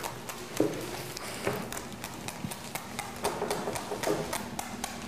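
Quick, irregular tapping and clicking as a needle pricker is pressed into fresh Salsiz sausages on a cutting board, pricking the casings.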